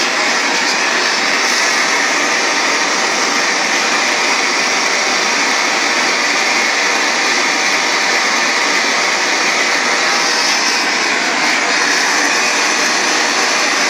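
LPG gas torch burning with a steady rushing noise, its flame heating a boiler end held in a vise up to silver-soldering heat.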